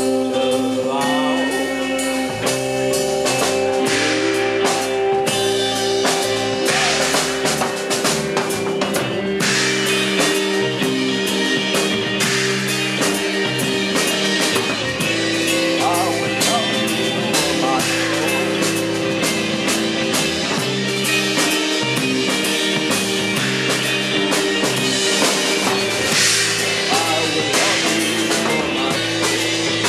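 Live psychedelic rock band playing: electric guitars, bass guitar and drum kit, with held guitar chords over steady drumming.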